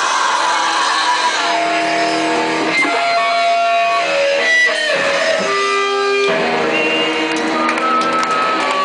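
Electric guitar ringing out sustained notes and chords that change about every second, after a loud noisy wash fades in the first second and a half.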